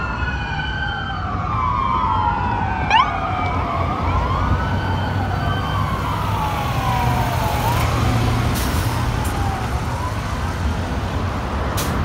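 Several fire-apparatus and ambulance sirens wailing at once, their rising and falling tones overlapping over a steady low engine and traffic rumble, with a quick upward sweep about three seconds in. The sirens fade out near the end.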